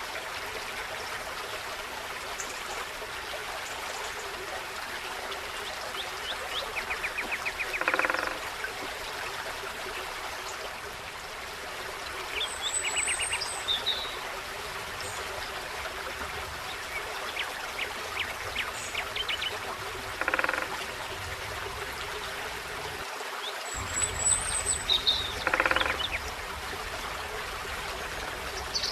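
Forest stream babbling steadily, with small birds calling over it now and then in high chirps and quick rattling runs of notes; a few short louder calls stand out, about 8, 20 and 26 seconds in.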